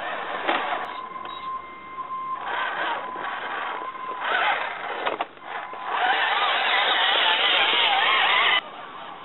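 Electric drive motor and gears of a 1:6 scale RC Willys Jeep crawler (Venom Creeper chassis) whining as it drives slowly. The whine is a steady tone for the first few seconds, then comes in short bursts as the throttle is worked. Near the end a louder wavering sound takes over and cuts off suddenly.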